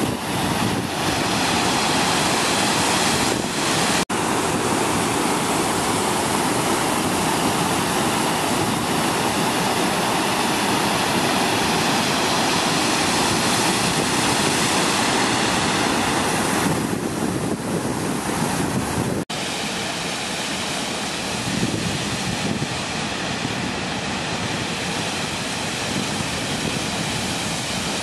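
Steady rushing water of the small man-made waterfalls at Wadi El-Rayan, cascading over a rocky weir between an upper and a lower lake. The sound drops out for an instant twice, and runs a little quieter after the second break.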